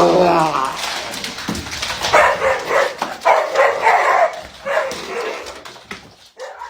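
A dog vocalising in a string of short pitched calls, after a rising call at the start.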